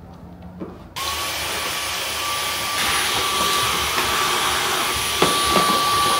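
Cordless Dyson stick vacuum, used as a handheld, switches on about a second in and runs steadily with a high whine. It gets louder about three seconds in, and there are a few knocks near the end as the nozzle bumps the car seat.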